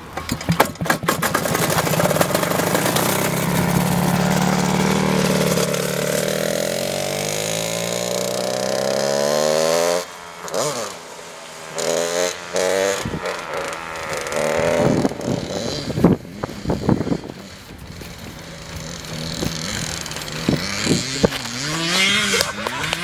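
100cc TKM two-stroke go-kart engine running at speed, its pitch rising and falling with the throttle. About ten seconds in it drops suddenly off the throttle, then gives short blips of revs before climbing again near the end.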